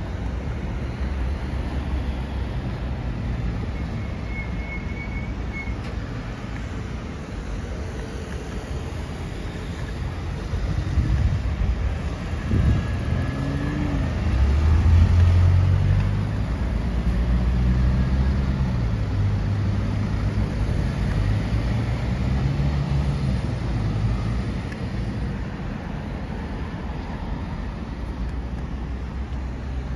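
City street traffic: a steady rumble of cars going by, with one louder vehicle engine passing close about halfway through, its pitch rising and falling before it fades back into the traffic.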